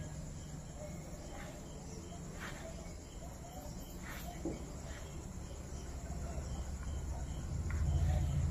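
Low steady background hum with a few faint soft ticks, the hum growing a little louder near the end.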